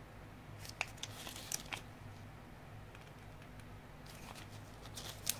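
Smartwatch packaging being handled: sharp crinkles and clicks of wrapping, in a cluster about a second in and another near the end, over a low steady hum.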